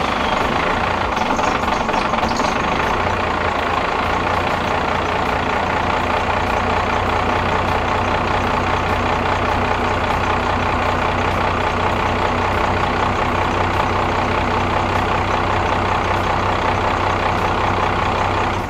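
A 5.9-litre 12-valve Cummins turbo diesel in a 1995 Dodge Ram 3500 idles steadily. It is running on freshly installed injectors that have just come back from testing.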